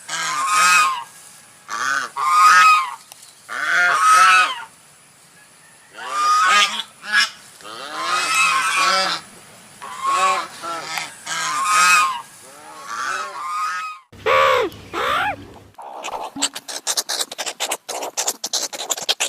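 Geese honking: a long series of loud, harsh calls repeated every second or so. After about fourteen seconds the honking stops, and near the end a rapid run of scratchy clicks takes over.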